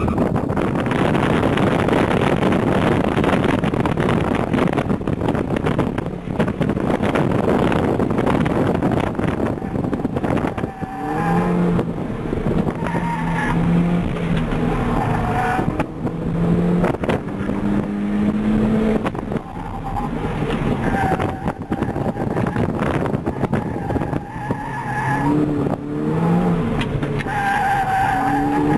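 Mini Cooper S engine running hard under acceleration, heard from inside the cabin with road and wind noise. From about eleven seconds in, the Dunlop Direzza Z1 Star Spec tires squeal in stretches through the corners.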